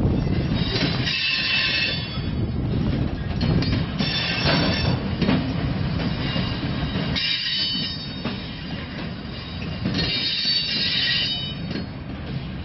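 Loaded military flatcars rolling slowly past on a freight train: a steady low rumble of steel wheels on rail, broken every few seconds by bouts of high-pitched wheel squeal, with a few clicks of wheels over rail joints.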